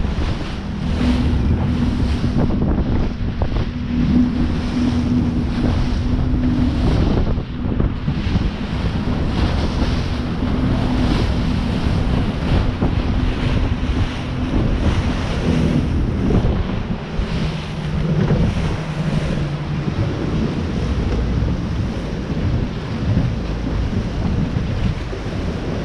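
Wind buffeting the microphone over the rush of the sea, with a boat engine's steady hum underneath.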